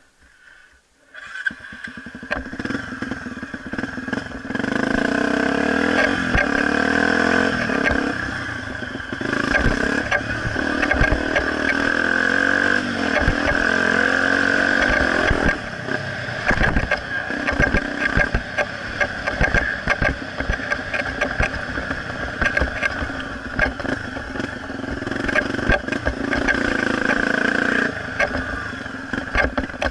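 Honda XR250 Tornado's single-cylinder four-stroke engine catches about a second in, then pulls away and runs hard. The revs rise and fall over loose dirt, with frequent knocks from the rough track.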